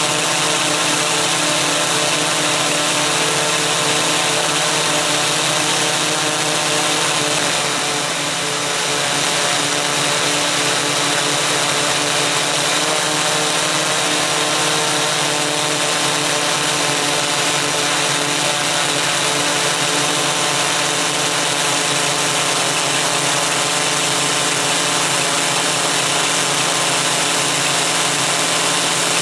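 Steady multi-tone whine and hum of a MikroKopter Koax-Quadro X8's eight electric motors and propellers, heard from on board the multicopter in flight. It eases slightly about eight seconds in.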